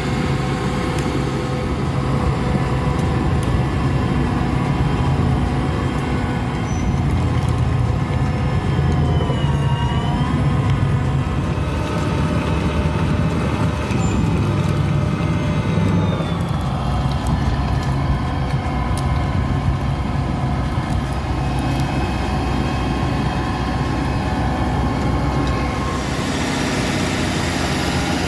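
Heavy diesel machinery running steadily under load, its engine pitch dipping and rising briefly about ten seconds in and shifting again a few seconds later.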